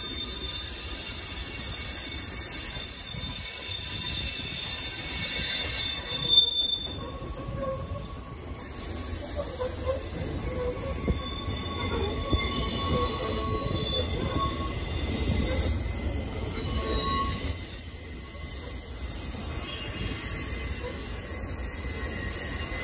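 Freight train rolling past close by, tank cars then boxcars, with a low steady rumble of wheels on the rails. Steel wheels squeal in several high, drawn-out tones that come and go.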